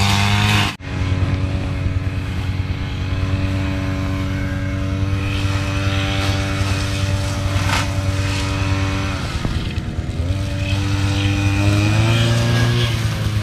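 Single-cylinder diesel engine of a hand tractor running steadily under load while tilling. It drops out for an instant near the start, and its pitch dips and then rises again near the end.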